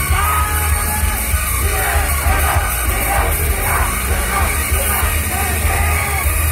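Idol-pop song playing loud through a stage PA with a heavy bass, with voices singing and yelling over it from about two seconds in.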